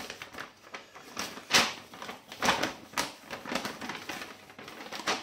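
A large folded paper instruction manual being handled and unfolded, with irregular paper rustles and crackles, loudest about a second and a half in.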